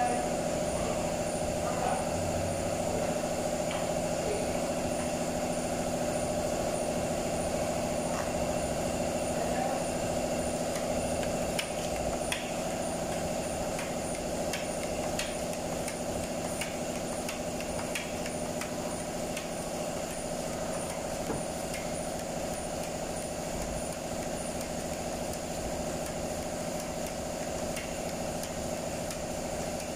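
Steady mechanical hum of a machine running in the workshop, with faint taps and scrapes of a body-filler spreader being worked against a mixing board and the panel.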